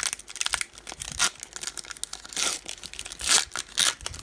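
Foil wrapper of a 2009 Topps Finest baseball card pack being torn open and crinkled by hand: a run of sharp crackles and tears, loudest about a second in and over the last two seconds.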